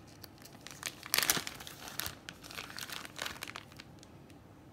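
Clear plastic bag being pulled open and crinkled as a wax melt bar is slid out; irregular crackling, loudest about a second in, dying away near the end.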